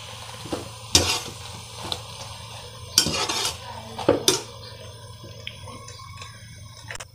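A wire skimmer stirring soya chunks in a metal pan of boiling water, clinking against the pan three times more loudly and scraping lightly in between, over the steady bubbling of the boil.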